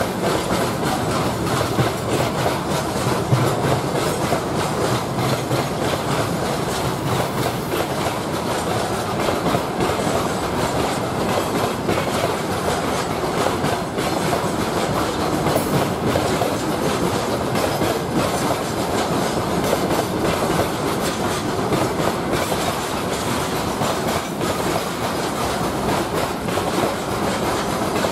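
Freight train of covered hopper wagons rolling past at a steady speed: the wheels run over the rails with an even, continuous noise flecked with small clicks.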